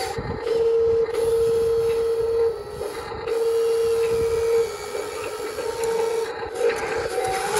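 HUINA 1583 RC front loader's lift and tilt gear motors whining in several one-to-two-second bursts as it raises and curls its bucket under the load of an 8 lb dumbbell.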